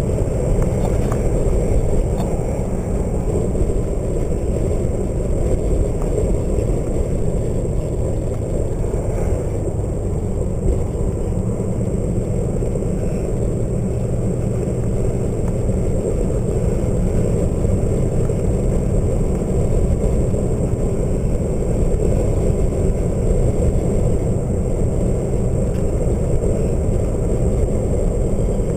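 Steady rush of road and wind noise from a moving vehicle, heard from inside the cab.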